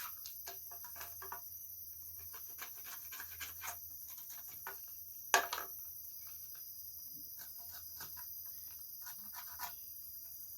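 Hand sanding of a plastic panel-meter housing: runs of short rasping strokes, with one sharp click about five seconds in.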